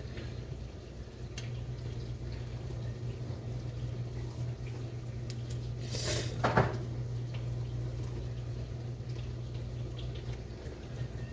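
Butter melting in a frying pan on the stove, a faint steady bubbling and sizzling over a low hum, with one brief louder sound about six seconds in.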